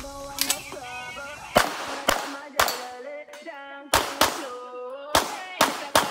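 Tanfoglio semi-automatic pistol fired about nine times in quick pairs and short strings during a practical shooting stage, each shot a sharp crack. Background music with a melodic line plays underneath.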